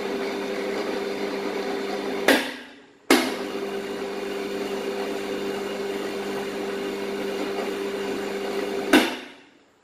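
Electric construction winch (Stronger 200 kg high-speed model, single-phase 2200 W motor driving a reduction gearbox) running under pendant control and winding its steel cable. It stops with a sharp click at about two seconds in and winds down, starts again a second later, and runs steadily until it stops with another sharp click and winds down near the end.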